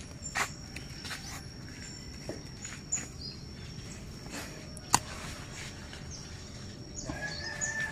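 Quiet outdoor ambience with a few short bird chirps over a steady high-pitched tone, broken by scattered light clicks and taps; one sharp click comes about five seconds in.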